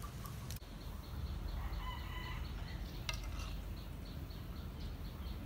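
Domestic fowl calling about two seconds in, over a low steady outdoor rumble.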